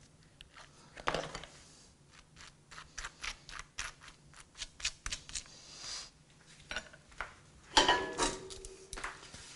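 Metal spoon spreading mayonnaise across crisp toast in a quick series of short scraping strokes, then the spoon clattering down onto a wooden cutting board with a brief metallic ring near the end.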